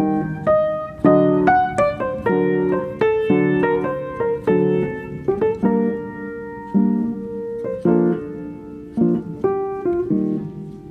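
Background piano music: chords and single notes struck one after another, each ringing and fading before the next.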